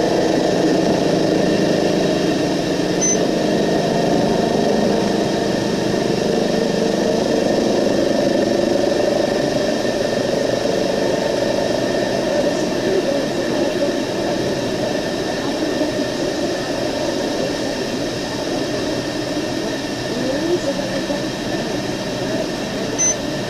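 Steady vehicle engine and road noise running on without a break.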